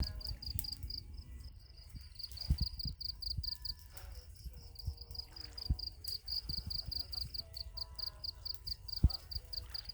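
Cricket chirping in a steady fast pulse, about six chirps a second, over a low wind rumble with scattered dull thumps.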